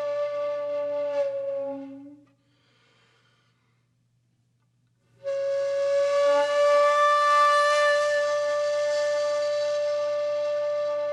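Music: a wind instrument holding one long note over a lower steady tone, fading out about two seconds in, then after about three seconds of near silence coming back in on the same long held note.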